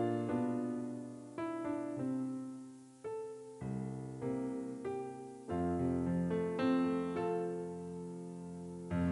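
Slow background piano music: single notes and chords struck and left to fade, with a deeper chord held from about halfway through.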